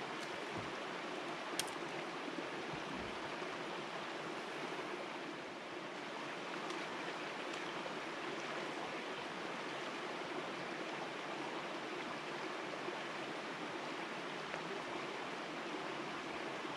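Shallow mountain creek running over rocks, a steady rushing of water, with a single brief click about a second and a half in.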